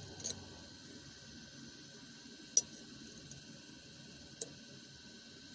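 Three light, sharp clicks of small metal tools against a fuel pump's retaining ring and housing as the ring is worked into its groove, the loudest a little before halfway, over a faint steady hiss.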